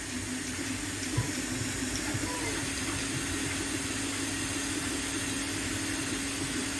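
AnkerMake 3D printer running: a steady machine hum with a slightly wavering tone over fan hiss, and a light tap about a second in.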